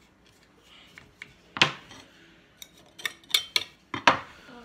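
A hand scraper scraping and clicking against the grimy housing of a Husqvarna 272 XP chainsaw, in a handful of short, sharp strokes: one about a second and a half in, then several close together in the last second and a half.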